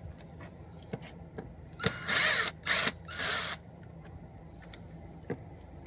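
Electric drill backing out the screws of a motorhome door latch: three short bursts of the motor whirring, with clicks of the bit on the screw heads.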